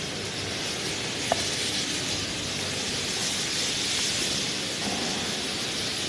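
Steady hissing machine noise from dry concrete floor grinding, with one sharp click about a second in.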